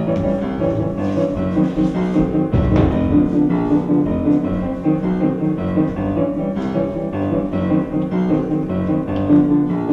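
Instrumental piano music: a passage of sustained chords and repeated notes, with no singing.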